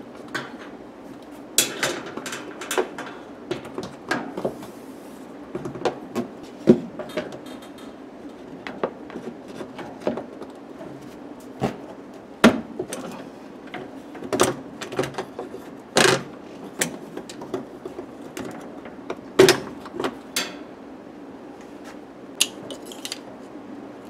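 Irregular clicks, knocks and plastic rattles as a Whirlpool Cabrio top-loader's suspension rod is worked loose from its mounting with a wooden stick. A low steady hum runs underneath.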